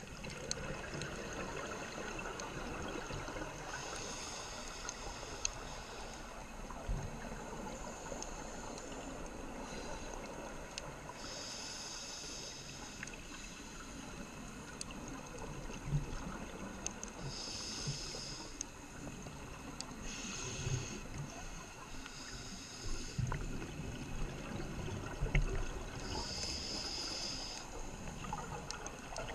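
Underwater sound of a scuba dive recorded through a GoPro housing: a steady muffled water noise, with bursts of bubbling hiss every few seconds as the scuba regulator exhales, and a few low thumps.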